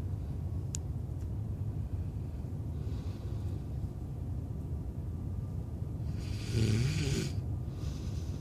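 A man snoring: a faint snore about three seconds in, then a loud snore lasting about a second, over a steady low rumble.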